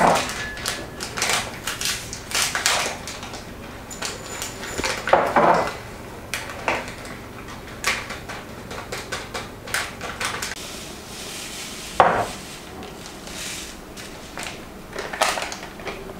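Crinkling of a plastic snack packet being opened and shelled sunflower seeds poured from it into a ceramic bowl, with sharper knocks of bowls set down on the countertop, the loudest about twelve seconds in.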